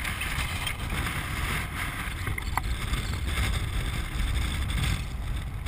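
Steady rush of wind over the microphone mixed with the rumble of a land yacht's wheels rolling fast over a hard dry lake bed, with one brief squeak about halfway through.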